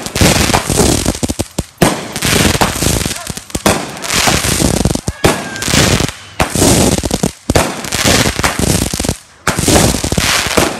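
Fireworks going off: dense runs of rapid, sharp bangs and crackles in several volleys, broken by short pauses.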